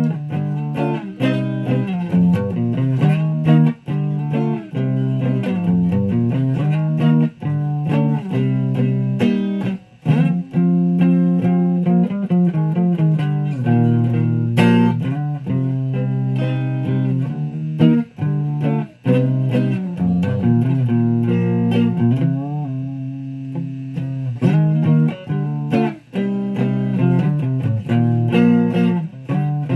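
Guitar being played: a continuous run of plucked notes and chords, with a few notes bent or slid in pitch about two-thirds of the way through.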